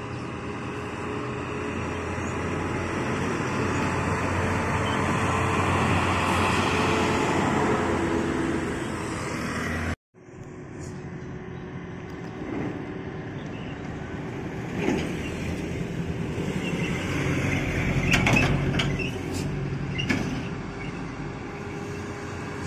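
Diesel engine of a heavy dump truck running as it drives along the road, with tyre and road noise. The sound cuts off abruptly about ten seconds in, then another truck is heard approaching, its engine growing louder and easing off near the end.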